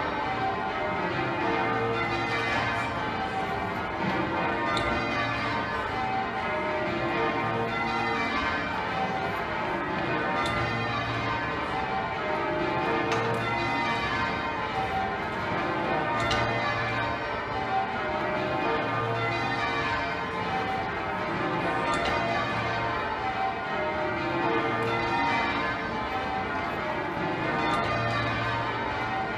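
Change ringing on Exeter Cathedral's ring of twelve church bells, tenor about 72 cwt: the bells strike one after another in continuous, even rows, with the deep note of the heaviest bell coming round about every three seconds.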